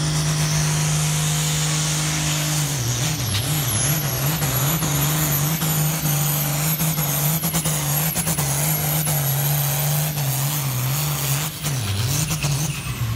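Ford farm tractor's diesel engine running flat out while pulling a weighted sled. The engine note holds steady at first, then from about three seconds in wavers down and up as the engine labours under the load, sagging deepest near the end.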